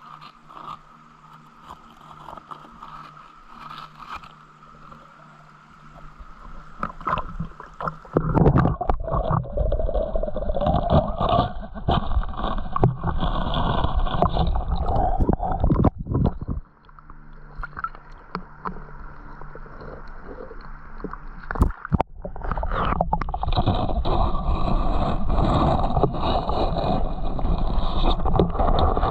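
Creek water sloshing and gurgling with scraping as a detecting target is dug out of the creek bed. It is faint at first, turns loud about eight seconds in, breaks off about halfway, and comes back loud for the last several seconds.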